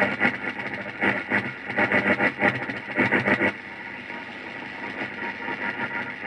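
Morse code picked up on a radio: short and long keyed bursts of a buzzy signal over a steady background hiss. The keying stops about three and a half seconds in, leaving mostly the hiss.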